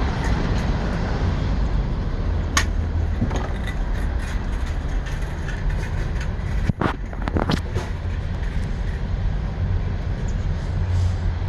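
A steady low rumble with a few brief clicks and taps, the loudest near the middle.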